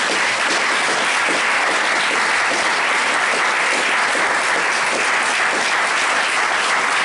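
Audience applauding: a dense, steady clapping.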